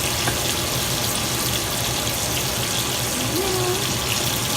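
Pancake batter sizzling steadily in a hot pan, an even hiss with a low steady hum beneath it.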